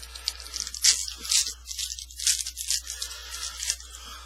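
Trading card packaging being torn open and crinkled: irregular crackling and tearing bursts.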